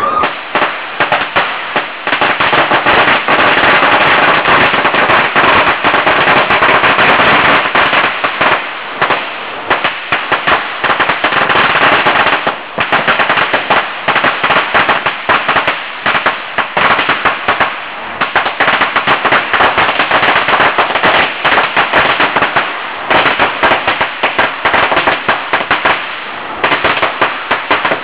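A long string of Chinese firecrackers going off as a rapid, continuous volley of loud bangs. The bangs are most tightly packed for the first several seconds, then come a little more raggedly with short lulls.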